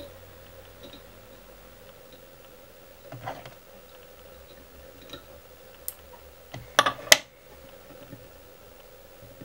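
Scattered sharp clicks and taps from fly-tying tools being handled at the vise, with a quick cluster of louder clicks about seven seconds in, over a faint steady hum.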